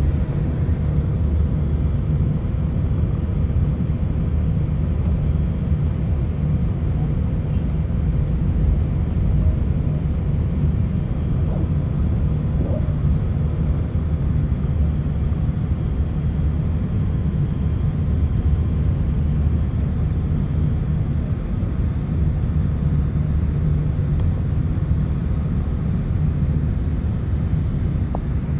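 Steady low rumble inside the cabin of a Boeing 787 airliner moving on the ground, its engines running at low power.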